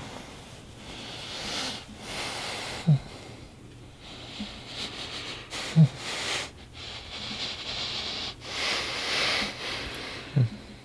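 A man breathing heavily and raggedly, with a short, strained vocal catch in his throat about every three seconds, four times in all.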